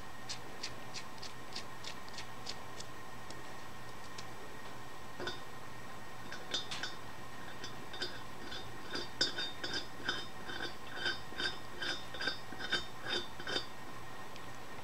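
Small steel parts clicking and clinking as bolts and nuts are threaded by hand into a cast-iron bracket. The clicks are faint and evenly spaced at first. From about five seconds in they become sharper, ringing clinks, two to three a second, and they stop shortly before the end. A steady hum runs underneath.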